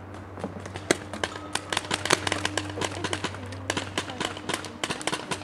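Paintball markers firing: a rapid, irregular run of sharp pops from several guns, often several shots a second and overlapping.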